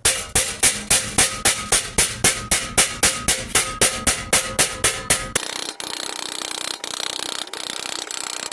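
A homemade body slapper, made from an office chair back, striking sheet steel about four times a second with a ringing tone, as the door panel's edge is worked. A little over five seconds in the slapping stops and a steady hissing noise follows.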